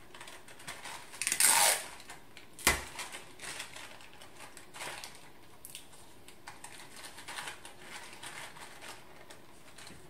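Paper and sticky tape being handled: a short, loud scraping rustle about a second in, a single sharp click near three seconds, then light rustles and taps as a paper handle strip is taped inside a paper lantern.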